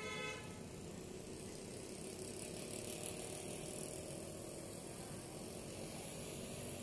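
Faint street noise: a low steady rumble of traffic, with a short pitched ring at the very start and a soft hiss swelling in the middle.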